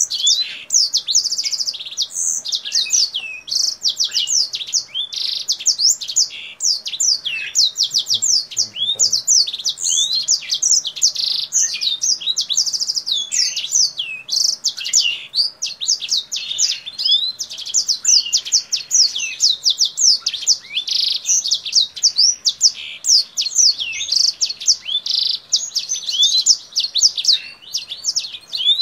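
Caged kingthroat singing without pause: a fast, high song of chirps, rapid trills and quick rising and falling sweeps, much like a black-throated canary's song.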